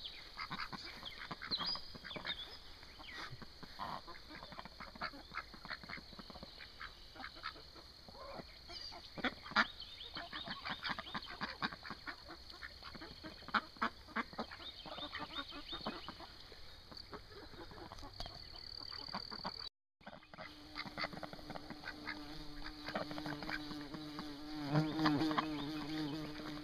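White domestic ducks quacking on and off as they forage. In the last part a steady insect buzz joins them.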